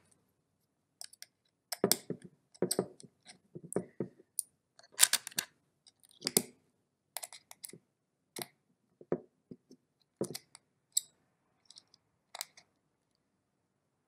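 Irregular small clicks and taps of a little L-shaped metal key working a screw into a plastic keypad casing, with short quiet gaps between them.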